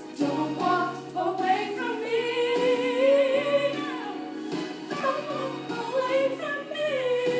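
A woman singing a slow song, holding long notes with vibrato, over a steady sustained backing tone.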